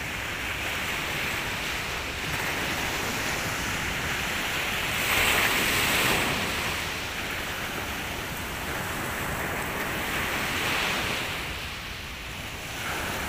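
Sea surf breaking and washing up a sandy beach. It swells loudest about five seconds in and again around ten seconds.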